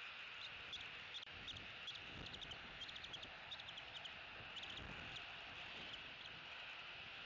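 Faint outdoor ambience at a bald eagle nest: a steady hiss with many short, high ticks in irregular clusters, typical of night insects, and a few soft low thumps.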